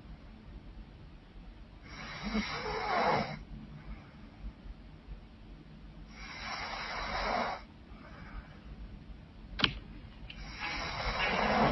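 A woman snoring loudly in her sleep: three long, rasping snores, each about a second and a half, coming about every four seconds. Between the second and third snores there is a single sharp click.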